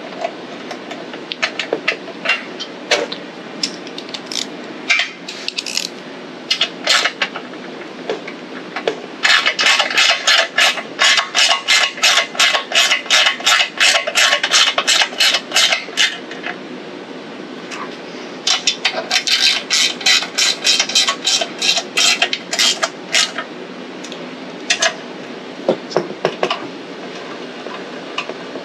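Hand ratchet clicking as it runs down the blower-housing bolts on a small engine: quick, even clicks, several a second, in two long runs, the first about nine seconds in and the second around twenty seconds. Scattered single tool clinks come before and between the runs.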